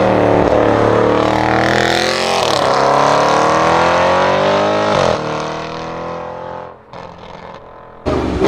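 Audi RS6 Avant C7's twin-turbo V8, with a Milltek exhaust, accelerating hard. Its pitch climbs, drops at an upshift about two and a half seconds in, climbs again and shifts a second time around five seconds in. It then eases off and dies away for about a second before coming back loud near the end.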